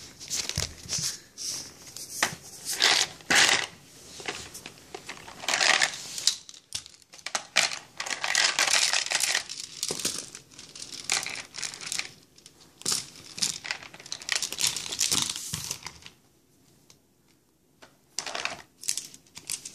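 Hard plastic toys rattling and clattering against a plastic basket as a baby's hands rummage through them, in irregular rustling, clicking bursts with a short lull near the end.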